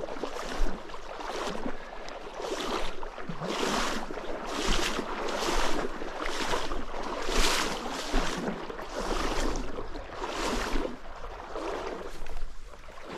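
Water swishing and sloshing in a run of swells about once a second, like legs wading through a trout stream step by step.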